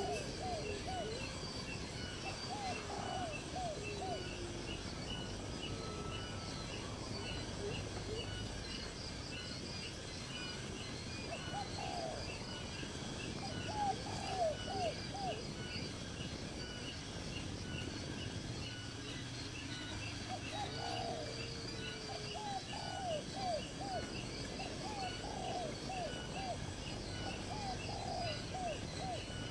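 Several birds calling in natural ambience. Low falling notes are heard near the start and again about two-thirds through, with groups of short arched notes coming in bursts, all over a steady, evenly spaced higher chirping.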